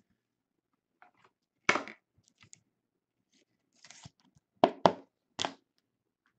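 Trading cards and their plastic sleeves being handled: a few short rustles and sharp clicks, three of them close together about two-thirds of the way through.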